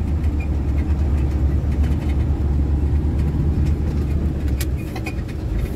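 Heavy truck on the move: a steady low rumble of its engine and road noise.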